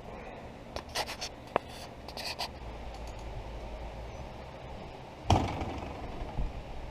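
A camera being handled and set down: scraping and small clicks, then one louder knock about five seconds in.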